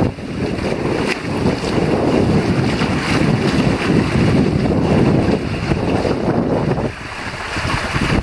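Wind buffeting the microphone over the rush and splash of water along the hull of a small sailing catamaran under way. The noise eases briefly about seven seconds in.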